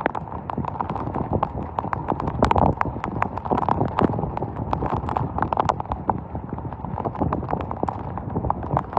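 Heavy storm rain pelting a hard surface close to the microphone: many irregular sharp taps a second over a steady rush of rain.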